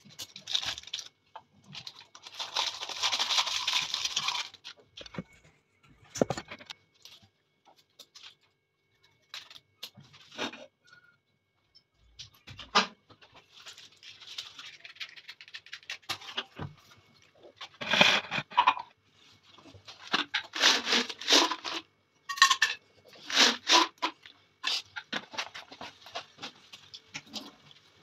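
Kitchen handling sounds while coffee is prepared in a ceramic mug: a coffee sachet rustling and being cut open, then a spoon scraping and tapping in the mug in repeated bursts.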